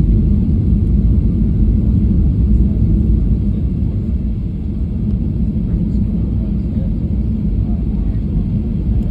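Steady low rumble in the cabin of a Boeing 737-800 taxiing, from its CFM56-7B engines and rolling airframe.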